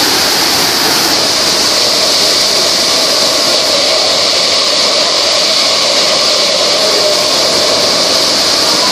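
Niagara Falls' water curtain pouring down just outside a rock tunnel portal behind the falls: a loud, steady rushing with no letup.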